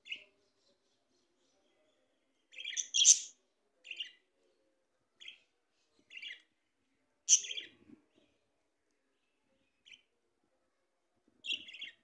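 Pet budgerigars chirping: short, high chirps every second or two with gaps between, loudest about three seconds in and again about seven seconds in.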